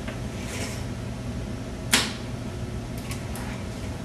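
A single sharp knock about two seconds in, followed by a few faint ticks near the end.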